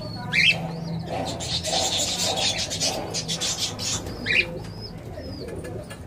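Lovebirds calling: two short shrill chirps, one near the start and one about four seconds in, with a stretch of rapid scratchy chattering between them.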